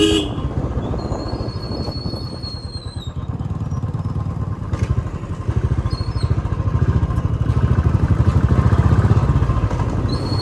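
Royal Enfield Classic 350's single-cylinder engine with its stock silencer, thumping steadily while riding. It grows louder from about halfway through as the bike picks up.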